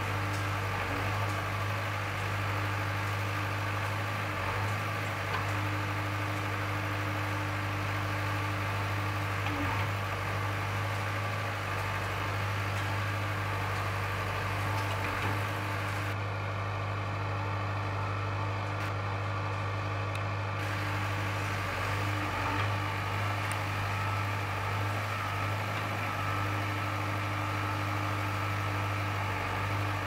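Diesel engine of a JCB 3DX backhoe loader running steadily while the backhoe arm digs, a constant low drone.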